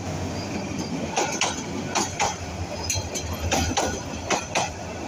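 Passenger coaches of the Titas Commuter train rolling past close by: a steady low rumble with the wheels knocking over rail joints, the knocks coming in pairs about a quarter second apart.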